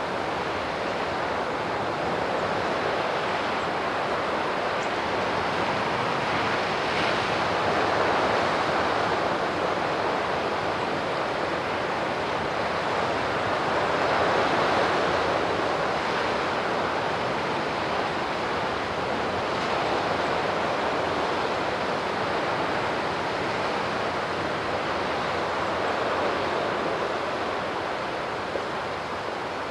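Sea surf washing steadily on the shore, swelling and easing in slow waves about every six seconds.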